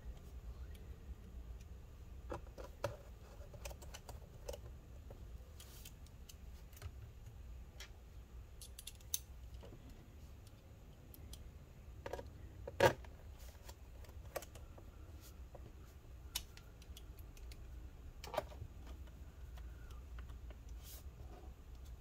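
Small screwdriver driving screws into a laptop's bottom cover: scattered faint clicks and taps of the driver tip and screws, with one sharper knock about halfway through.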